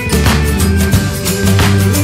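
Background music with steady bass notes and a regular drum beat.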